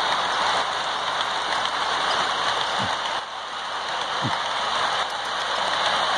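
HO-scale model passenger train rolling past on track: a steady rattling clatter of small metal wheels on the rails. Two brief low thuds come about three and four seconds in.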